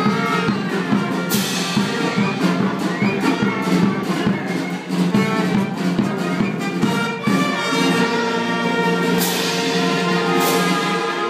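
Lively instrumental music with brass over a steady beat, closing on long held notes.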